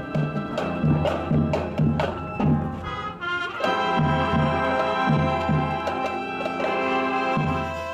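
School marching band playing: brass holding chords over regular bass drum beats, with a quick run of notes about three seconds in, then a long sustained chord and more drum hits near the end.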